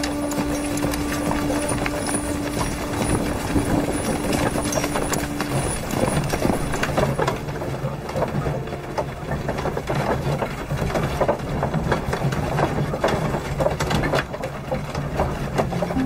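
Horses' hooves clip-clopping amid dense clattering, as of a horse-drawn carriage on the move. A low steady tone holds underneath and drops lower about six seconds in.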